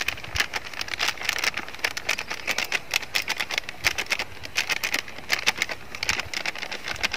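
Foil spice packet crinkling and rustling in the hands as it is shaken and squeezed empty: a dense run of small, irregular crackles.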